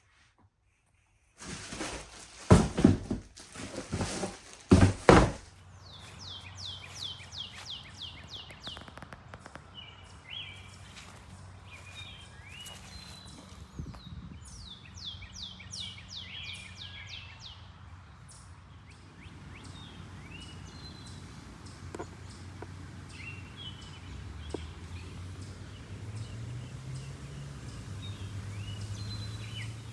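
A few loud thumps and knocks in the first few seconds, then birds singing outdoors: repeated runs of quick, high, downward-sliding notes with scattered chirps. A low steady hum grows louder near the end.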